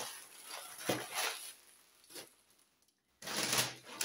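Paper wrapping and a plastic shopping bag crinkling as they are handled, in several short rustling bursts with a silent break just before three seconds in. The loudest rustle comes after the break.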